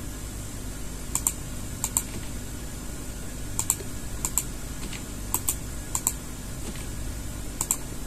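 Computer keyboard and mouse clicking: seven quick double clicks at uneven spacing, over a faint steady low hum.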